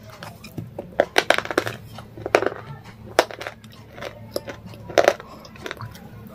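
Crunching bites into a hard white block and chewing it, several sharp crunches: one about a second in, a quick run just after, and others at roughly even gaps.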